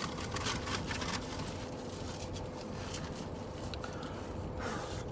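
Steady low background hum with a faint steady tone, and a few light scrapes and rustles of handling, mostly in the first second.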